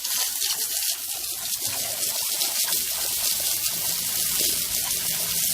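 Running water, a steady hiss.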